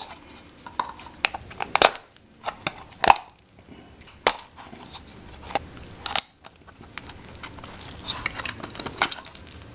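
Utility knife cutting the small tabs off a black plastic downspout adapter: several sharp snaps and crunches about a second apart as the blade bites through the plastic, with quieter scraping between.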